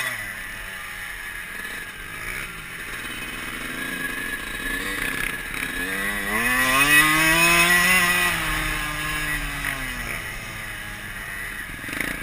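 Dirt bike engine heard from the rider's helmet: it drops off the throttle at the start, then the revs climb steadily to a peak and ease back down over a few seconds, with wind noise throughout.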